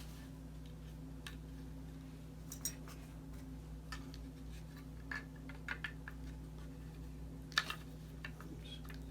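Scattered light clicks and taps of frozen drink machine faceplate parts being handled and fitted, over a steady low hum.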